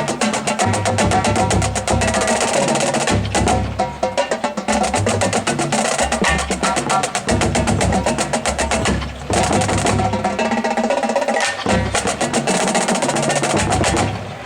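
Marching drumline playing a cadence: rapid snare strokes over changing pitches from the tuned bass drums. It stops abruptly near the end.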